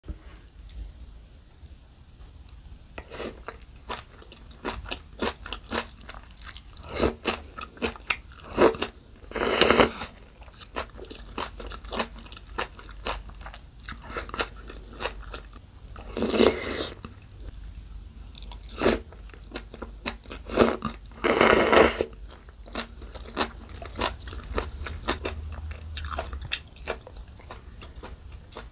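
Close-miked eating: crisp crunching and chewing of bean sprouts and young radish kimchi in spicy bibim noodles, broken by a few longer, louder slurps of noodles.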